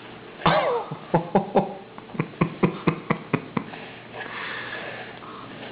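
Wet smacking and chewing of a mouthful of banana: a short falling vocal squeak, then a quick run of sharp mouth smacks at about four a second, then a soft breathy hiss.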